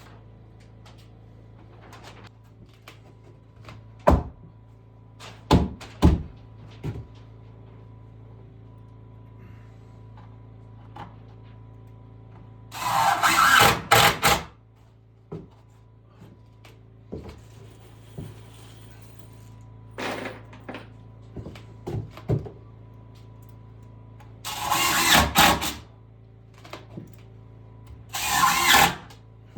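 Woodworking noises: several sharp knocks and thunks of wood being handled, and three short, noisy bursts of a tool working the wood, each lasting a second or so. A steady low hum runs underneath.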